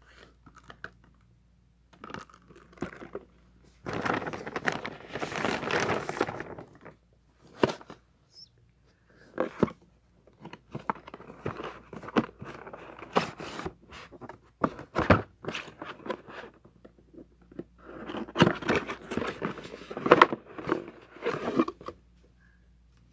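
Packaging being handled and opened: crinkling and rustling of plastic wrap and cardboard in two longer stretches, with scattered clicks and taps as boxes and their contents are picked up and set down.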